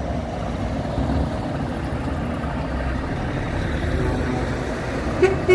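Heavy diesel truck tractor units, a Renault and then a Scania, pulling past at low speed with a steady low engine rumble. Near the end a truck horn starts sounding.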